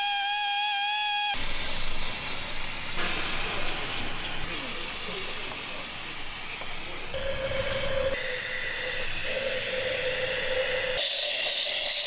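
Aerosol parts cleaner hissing steadily as it is sprayed onto an engine part, starting after background music stops just over a second in. From about seven to eleven seconds a steady whistle rides on the hiss.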